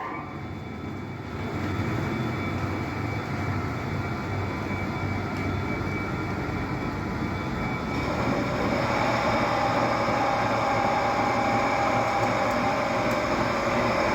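A steady mechanical rumble with a few steady tones running through it. It starts abruptly and grows louder about eight seconds in.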